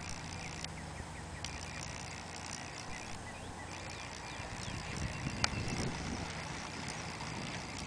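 Outdoor ambience of scattered small bird chirps over a faint low hum, with one sharp click about five and a half seconds in.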